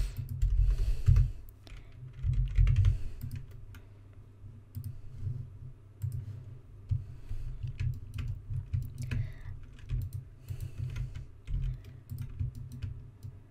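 Typing on a computer keyboard, with scattered mouse clicks. The keystrokes are heavier for the first few seconds, with low thumps under them.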